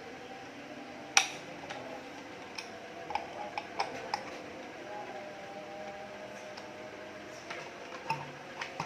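Scattered clicks and taps from a blade and its fittings being handled as they are mounted on a miter saw. There is one sharper click about a second in and a small cluster around three to four seconds in.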